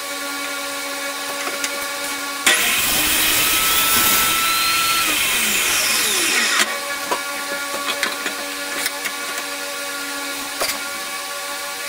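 A table saw runs with a steady motor hum. About two and a half seconds in, the blade bites into a wooden board and cuts through it for about four seconds, then runs free again, with a few light knocks afterwards.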